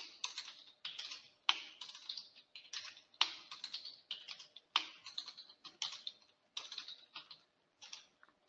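Computer keyboard typing: quick, irregular keystrokes with short pauses between runs, while values are entered into table cells.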